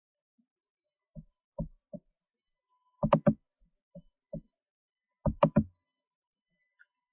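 A series of short knocks or taps in small clusters of two to four, coming every second or so, with the loudest groups about three and five seconds in.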